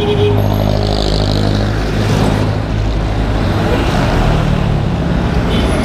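Road traffic: a motor vehicle's engine running close by, a steady low hum that fades about two and a half seconds in, leaving the even rush of traffic noise.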